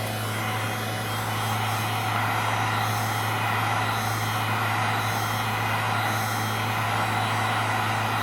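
Heat gun set to 950 degrees blowing steadily, its fan motor giving a low hum under the rush of hot air, a little louder about two seconds in, as it heats a phone until it is hot to the touch.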